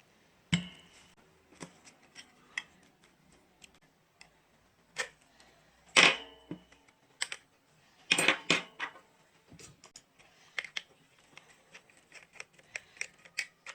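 Irregular clicks and knocks of a small plastic Bluetooth speaker being handled and taken apart by hand, with a few louder snaps and knocks.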